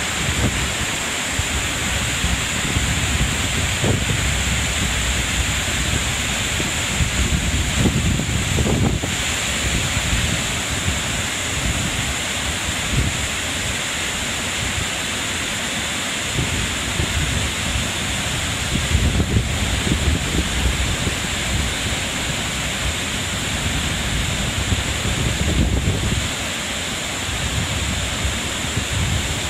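Harajiri Falls, a broad waterfall, rushing steadily, with wind gusting irregularly across the microphone.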